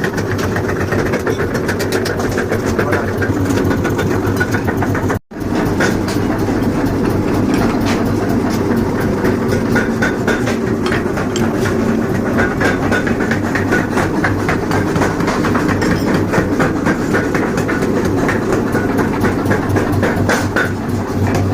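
A 75 kg mechanical forging power hammer running steadily with a fast, continuous clatter over a low motor hum. The sound cuts out for an instant about five seconds in.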